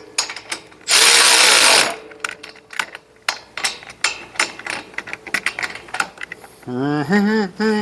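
Cordless power ratchet running in reverse in short bursts to back out a very tight frame bolt on a Brunswick A2 pinsetter, a whirring burst about a second in, then scattered clicks of the ratchet and metal parts, and a wavering pitched whirr near the end.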